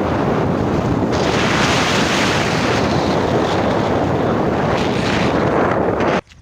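Loud, steady wind noise buffeting the microphone, starting and cutting off abruptly near the end.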